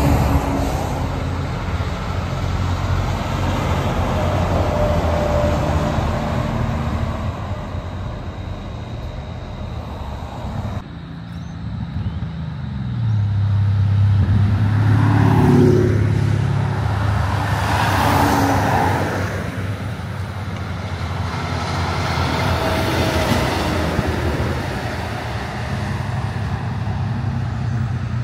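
Heavy trucks passing on a highway one after another: diesel engines running and tyre noise that swells and fades with each pass. One engine climbs in pitch about twelve seconds in.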